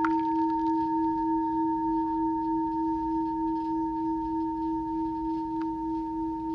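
Singing bowl ringing on with a steady low hum and a higher overtone, wavering slightly and slowly fading. A light click sounds right at the start and another near the end.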